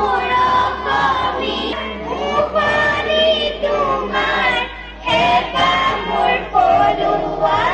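A large group of girls and women singing an anthem together, holding long notes as one melody.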